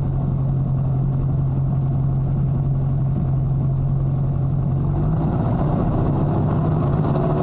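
Pitts aerobatic biplane's piston engine and propeller running loud and steady, then rising in pitch from about five seconds in as power comes up.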